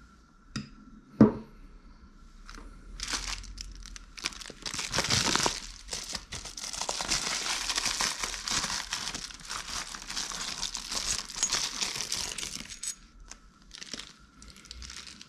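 Packaging crinkling and rustling as it is handled and torn open, for about ten seconds, after a single sharp click about a second in.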